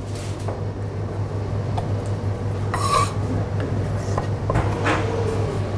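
Kitchen knife scraping and knocking on a plastic cutting board while a flatfish fillet is trimmed, with a sharper scrape about three seconds in, over a steady low hum.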